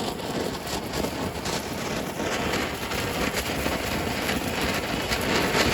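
Lit handheld fireworks spraying: a steady hiss with fine crackling that swells a little about two seconds in.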